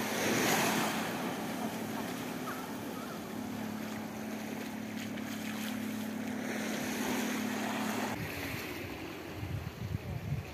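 Surf washing on a sandy beach under a steady low engine hum, which cuts off about 8 seconds in. Near the end, gusts of wind buffet the microphone.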